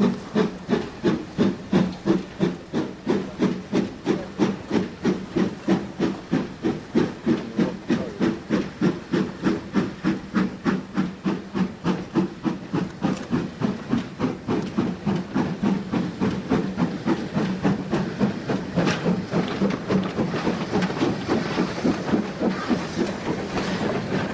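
GER N7 0-6-2T steam tank locomotive working hard, its exhaust beats coming about three a second and quickening as it gathers speed, until near the end they run together into a continuous chuffing rush.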